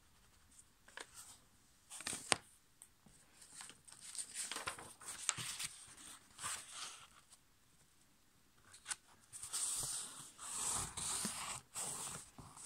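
A sheet of A5 copy paper rustling and crinkling as hands handle it and press it flat against a table, with one sharp tap about two seconds in and busier rustling near the end.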